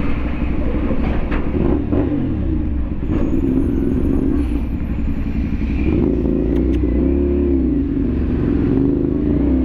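Close-range engine noise in slow traffic: a CFMoto 450SR motorcycle's engine running at low speed right beside a large truck's diesel engine. The engine pitch dips and rises a couple of times as the engines are revved.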